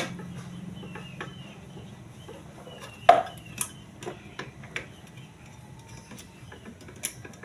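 Small metal clicks and clinks of a bolt and hand tools as the pulley bolt is fitted onto a washing machine spin motor, with one sharper metallic click about three seconds in.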